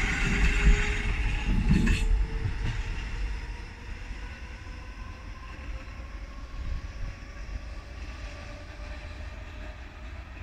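Hamburg S-Bahn class 472 electric multiple unit pulling away along the track, its wheels rumbling on the rails with a steady motor whine. It is loud at first, then fades to a distant rumble within about three seconds as the train recedes.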